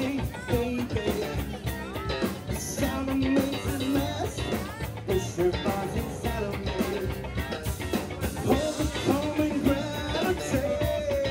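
Live rock band playing: electric guitars and a drum kit, with a man singing into a microphone over them.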